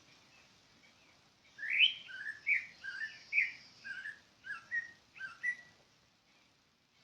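A songbird singing one phrase of about a dozen quick, clear whistled notes that alternate between higher and lower pitches. The phrase starts about a second and a half in, lasts about four seconds, and ends on a short level note.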